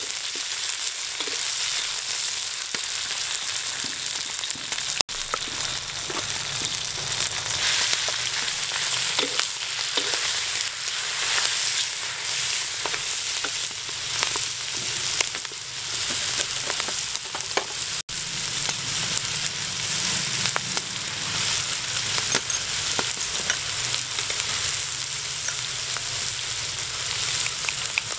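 Mussel meat, sliced chilies and shredded vegetables sizzling in hot oil in a wok, stirred with a wooden spatula that scrapes and knocks against the pan. The steady sizzle cuts out for an instant twice.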